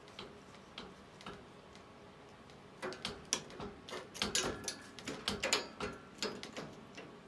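A cat batting at a bundle of dry silver vine sticks hung on a ribbon, the sticks clicking and knocking against the wire cage and its shelf. A few scattered clicks, then a dense flurry of knocks and rattles starting about three seconds in and lasting about three seconds.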